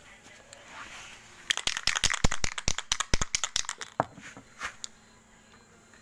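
Aerosol spray-paint can being shaken, its mixing ball rattling in a rapid run of sharp clacks, about eight to ten a second, for roughly two and a half seconds, then a few scattered clicks.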